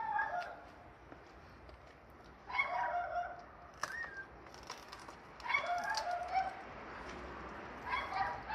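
A dog whining in short, pitched cries that come roughly every two and a half seconds, with a few light clicks in between.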